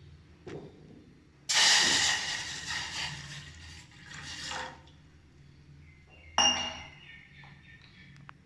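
Liquid poured into a cooking vessel in a rush lasting about three seconds. A few seconds later comes a single ringing clink of kitchenware.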